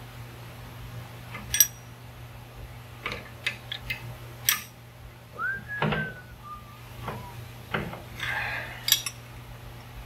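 Steel combination wrenches clicking and clinking against a brass elbow fitting as a hydraulic hose is tightened onto the lift cylinder: a few scattered sharp metal taps over a steady low hum, with a brief high squeak about halfway through.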